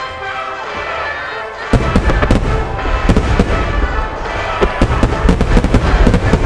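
Music plays over loudspeakers, then about two seconds in a starmine barrage of aerial fireworks shells begins: a dense run of rapid, overlapping booms and bangs that goes on, with the music beneath.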